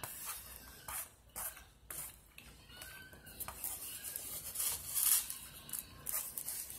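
A spoon scraping and clicking against a plate in short, irregular strokes as the last food is gathered, with close-up chewing and mouth sounds.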